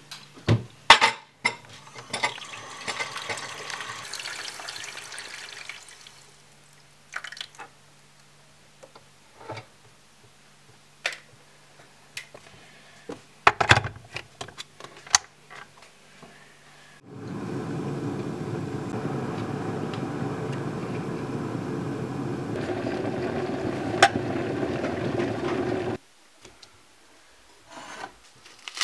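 A kitchen tap runs water, likely filling a kettle, for a few seconds, followed by scattered clicks and knocks. Then a Clatronic stainless-steel electric kettle heats with a steady rushing rumble for about nine seconds, which stops abruptly.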